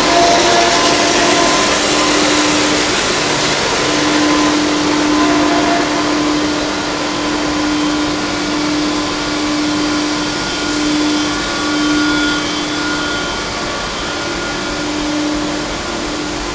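Plastic pipe extrusion line running: a steady, loud whirring noise of motors with a steady hum that wavers slightly.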